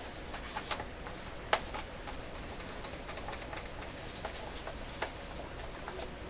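Scattered light clicks and taps of a transistor radio's cabinet being handled and worked on by hand, the sharpest about one and a half seconds in, over a low steady hum.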